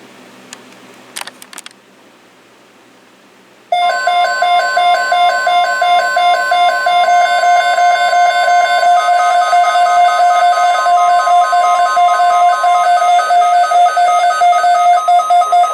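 Weather alert radio sounding its alarm for an incoming warning: a loud, steady, pulsing electronic tone with a constant higher tone beneath it, starting about four seconds in after a few short clicks.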